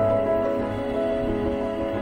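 Soft, slow instrumental background music with held notes over a low bass.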